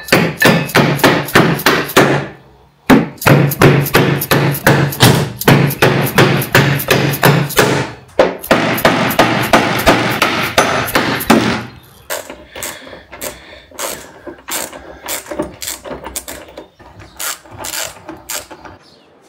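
Hand hammer striking repeatedly, about three to four blows a second in long runs, with the blows sparser and lighter in the last several seconds.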